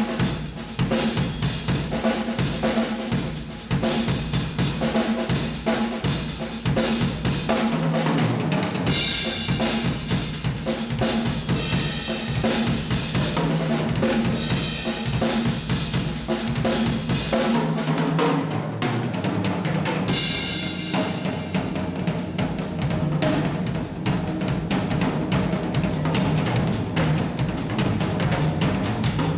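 Drum solo on an acoustic drum kit: fast, dense strokes on snare, toms and bass drum, with cymbals washing over the playing in two stretches, about nine and twenty seconds in.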